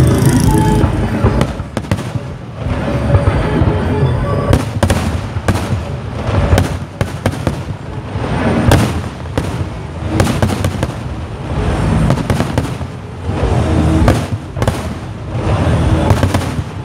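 Aerial fireworks display: a fast, continuous barrage of bangs from many shells bursting, swelling and easing every second or two.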